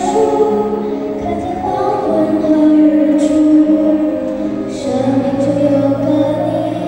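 A young girl singing a Chinese-language song into a microphone over a recorded backing track, holding long notes that change pitch every second or two.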